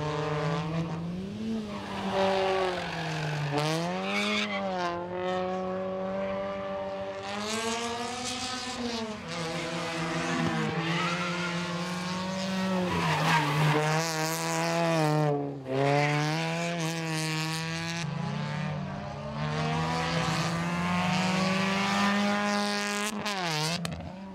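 Suzuki Swift rally car's four-cylinder engine driven hard, its revs climbing and dropping again and again through gear changes and corners, with tyres squealing at times.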